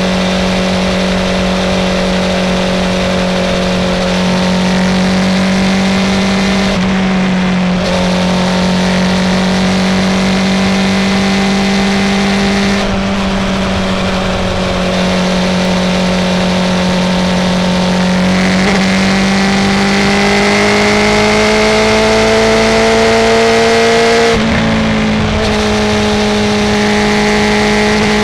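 Honda CB650R inline-four motorcycle with a full Akrapovic titanium exhaust, cruising under steady throttle. The engine note holds fairly constant and creeps upward, with brief abrupt changes in pitch a few times.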